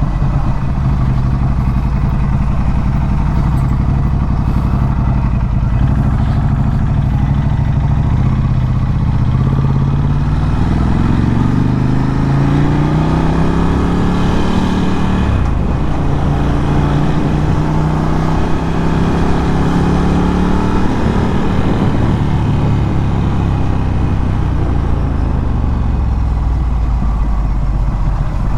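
Ducati Scrambler 1100's air-cooled L-twin through a Termignoni exhaust, running at low revs, then pulling up through the revs from about ten seconds in and easing back down near the end.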